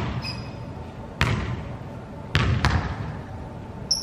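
Basketballs bouncing on a hard gym floor: three echoing bounces, the last two close together, with a brief high squeak just after the start.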